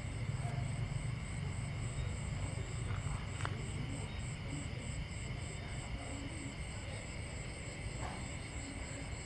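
Crickets and other night insects chirping in a steady chorus, one high chirp repeating about four times a second over continuous trills, with a low rumble underneath.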